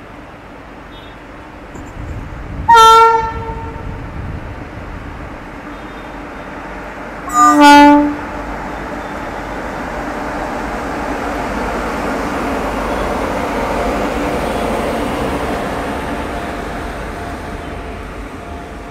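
WAP-7 electric locomotive's horn sounding twice: a short, higher-pitched toot, then a lower, slightly longer blast about five seconds later. The train then rolls past on the rails, growing louder and easing off near the end.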